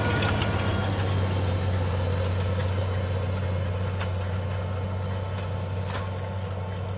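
A steady low mechanical hum with a thin high whine above it, slowly fading.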